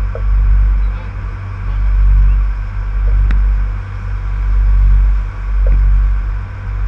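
Fishing boat's engine running steadily underway, with a deep rumble that swells and fades every second or two.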